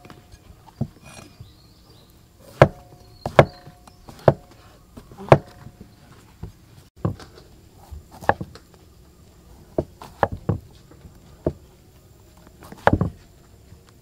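A large kitchen knife cutting through thick mushroom stems and striking a wooden chopping board: single sharp knocks at an uneven pace of roughly one a second, with a quick cluster of chops near the end.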